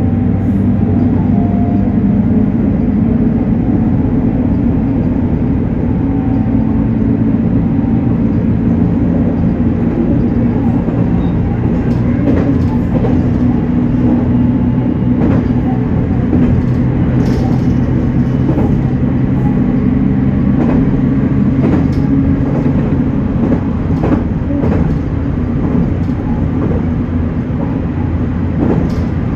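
JR Kyushu 813 series electric train running along the line with a steady low rumble and hum. From about twelve seconds in, the wheels give irregular sharp clacks.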